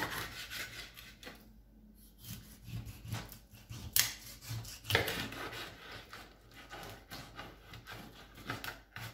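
Large kitchen knife sawing crosswise through a whole mackerel on a plastic cutting board, the blade rasping back and forth through flesh and backbone in uneven strokes, with a sharper knock about four seconds in.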